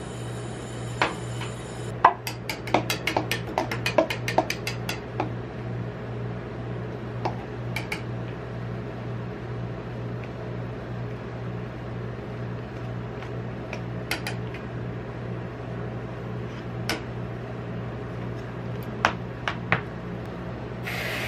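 Metal spatulas clicking and scraping on the steel cold plate of a rolled-ice-cream machine as ice cream rolls are lifted off. There is a rapid flurry of sharp clicks about two seconds in, then scattered single taps, all over a steady low hum.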